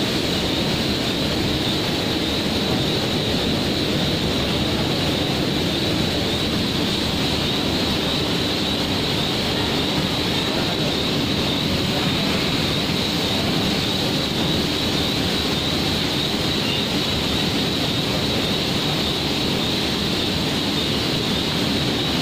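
Steady, unchanging machinery noise of a factory floor, a constant roar with a hiss on top, with no pauses or rhythm.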